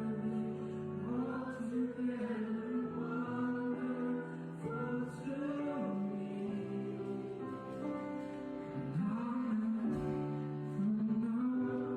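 Church worship music: singing with long held notes that slide from pitch to pitch, over sustained musical tones.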